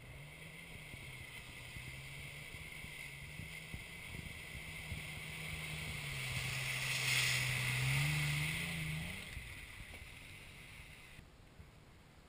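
Motorboat engine running as the boat passes, a steady hum that grows louder to a peak about seven seconds in, rises briefly in pitch, then fades away.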